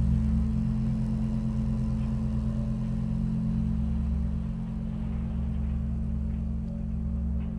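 Experimental electroacoustic music: a steady, low rumbling drone with little high-pitched content, close in sound to an engine.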